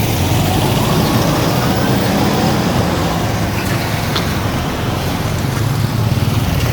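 Motor vehicle running along a road: a steady low engine rumble with road and wind noise over it.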